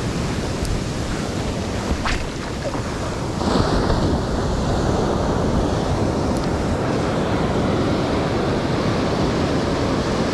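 Ocean surf washing and breaking in the shallows, close at hand. The wash swells louder about three and a half seconds in and stays up.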